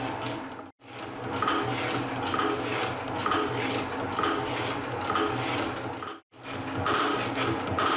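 Elliott 10M metal shaper running and cutting, its ram stroking about once a second, with the table feed advancing on each backstroke. The sound drops out briefly twice.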